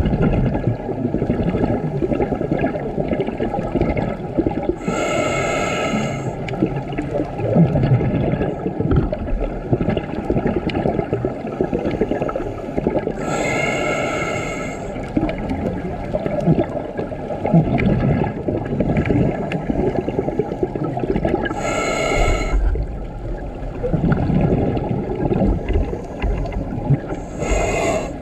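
A scuba diver breathing through a regulator underwater. A short whistling hiss on each inhalation comes four times, about every eight seconds, and exhaled bubbles gurgle and rumble in between.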